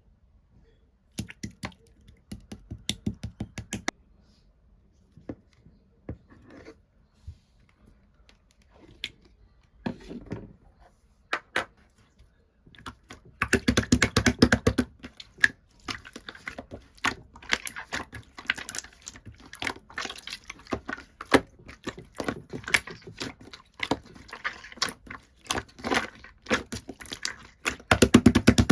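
Pearl slime being squished and pressed by hand, giving sharp clicks and pops. They come in short scattered groups at first and turn into dense, steady crackling about halfway through.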